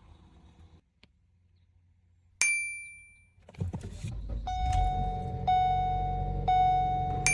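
A single ringing ding, then the Ford Escape's engine starts about three and a half seconds in and runs at idle. A steady chime tone, broken about once a second, sounds over it.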